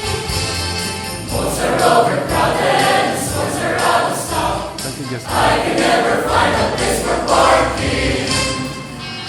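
A choir singing an upbeat Christmas cantata song over instrumental accompaniment, with jingle bells shaking in time.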